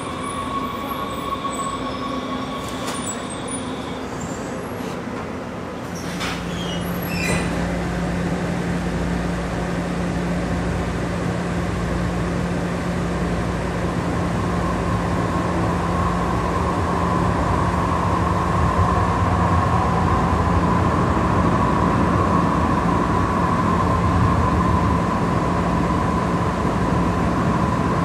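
Breda light rail vehicle pulling into a street stop, with a steady high whine for the first few seconds. From about six seconds in, the ride heard from inside the Breda light rail car: a steady low hum and rumble of the car running on the rails, with a middle-pitched whine, growing gradually louder.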